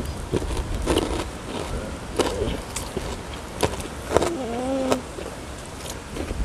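Eating at a table: sharp clicks and crunches of utensils, plates and food, with a short hum from a person about four seconds in.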